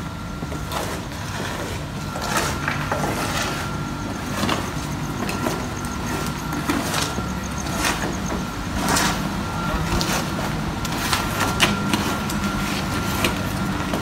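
Steady low machine hum with a faint high tone, under irregular scrapes and knocks of workers shovelling and working mortar by hand on a concrete slab.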